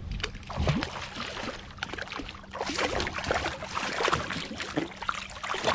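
Water splashing and churning as a hooked catfish thrashes at the surface beside the kayak and is pulled out of the water, in a run of quick irregular splashes that is busiest in the middle.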